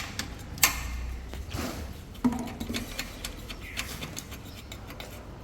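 Scattered clicks and light knocks from parts or tools being handled during hybrid battery pack work, the sharpest about half a second in and another a little past two seconds with a brief ring, over a steady low hum.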